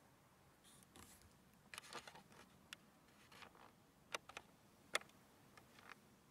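Faint footsteps scuffing on a path, with a few sharp clicks and taps, the clearest about four and five seconds in.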